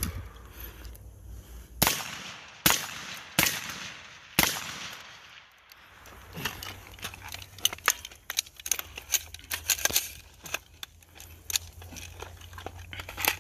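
Shots from an AR-15-style pistol: five sharp reports at an uneven pace in the first four and a half seconds, then a quicker run of lighter cracks and clicks.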